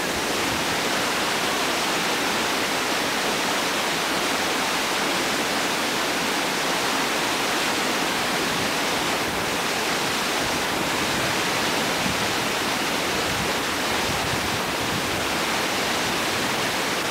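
Whitewater river rapid rushing: a steady, unbroken roar of churning water.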